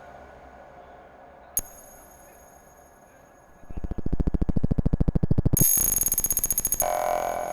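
Electronic fixed-media music: a single sharp click, then a rapid train of clicks that grows loud into a buzzing pulse about halfway through, turns bright and high-pitched, and gives way to a steady tone near the end.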